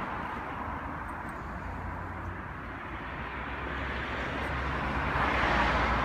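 Steady outdoor background noise with a low hum underneath, growing louder over the last couple of seconds.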